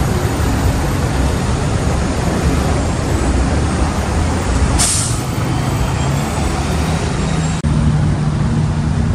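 Street traffic with a city bus's engine running close by. About five seconds in comes one short, sharp hiss of air brakes. Near the end the sound breaks off for an instant and steady traffic hum carries on.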